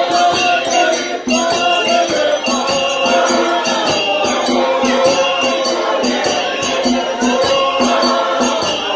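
A large congregation singing a hymn together, many voices in unison, over a steady percussive beat of about two to three strokes a second.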